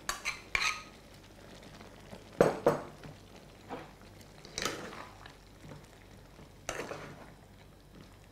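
Metal spoon and ladle working in an aluminium cooking pot: green curry paste is scraped from a bowl, then stirred into thick chicken curry. The stirring gives a few separate clinks and scrapes of metal on metal, with quiet gaps between them.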